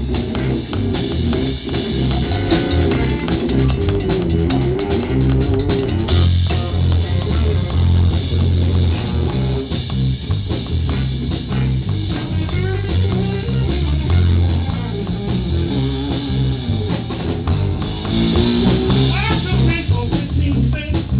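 Electric guitar and drum kit playing a live blues-rock number together.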